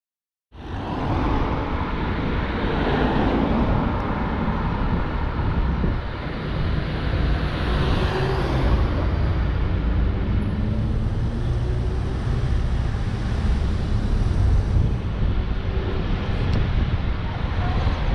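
Road traffic on a town street: cars driving past close by, engine and tyre noise over a steady rumble, cutting in abruptly about half a second in.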